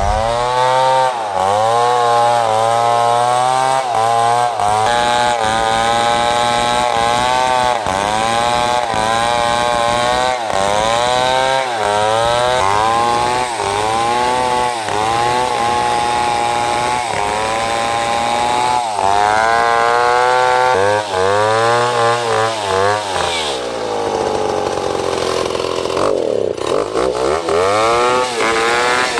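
Large two-stroke chainsaw running at high revs while cutting a big bengkirai hardwood log. Its pitch rises and falls every second or two, and near the end it drops much lower before climbing again.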